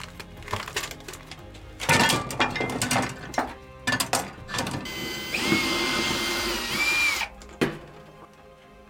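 Hand tools and small objects clattering as they are handled and set down on wooden shelves and boards, then about two seconds of a steady mechanical whir with a whine, ending about seven seconds in.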